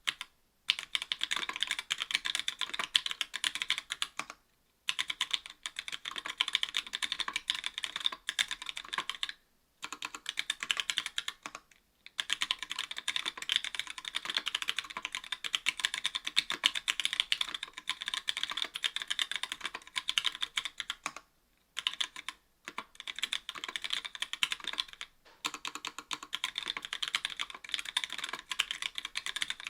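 Fast typing on an Octagon V3 mechanical keyboard with stock Gateron Yellow linear switches, an aluminium plate and GMK keycaps: a continuous rattle of key clacks, broken by short pauses every few seconds.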